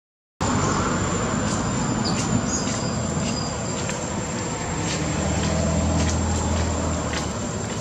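Outdoor ambience after a half-second dropout: a steady hiss with a constant high insect tone, and a motor vehicle's low hum that swells in the middle and fades again.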